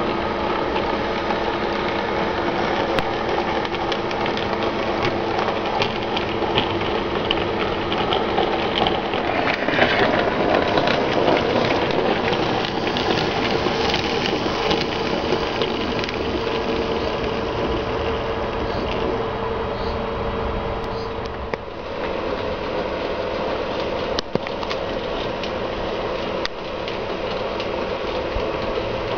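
OO gauge model train running on the layout: a small electric motor whirring, with the wheels clattering and clicking along the rails. It swells to its loudest about a third of the way in and dips briefly about three-quarters of the way through.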